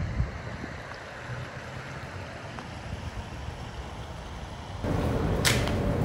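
Steady rushing of a river flowing, with wind rumbling on the microphone. About five seconds in the sound jumps louder and a single sharp snap is heard.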